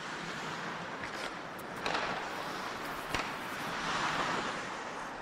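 Ice hockey players skating through a drill: skate blades scraping and hissing on the ice in swells, with a few sharp clacks of sticks and puck, the clearest about three seconds in.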